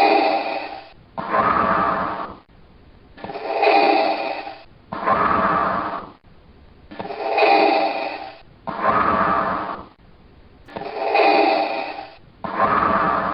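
Darth Vader's respirator breathing sound effect: slow, hissing, mechanical breaths. Each cycle is a breath in and a breath out of about a second and a half each, with a short pause before the next, about three and a half cycles in all.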